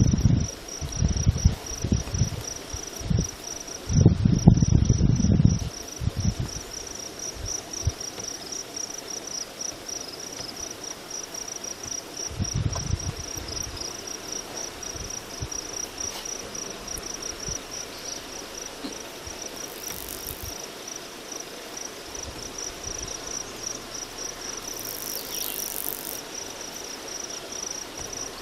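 Insects trilling in a fast, steady, high-pitched pulse. Low rumbling bursts come in the first six seconds and again around 13 seconds.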